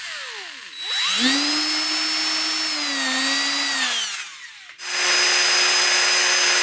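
Electric drill motor drilling at a small rivet in a phenolic plate. It winds down, starts up again with a rising whine, runs steadily for a few seconds with a slight dip, and winds down once more. Near the end a steady whine at a different pitch starts and stops abruptly.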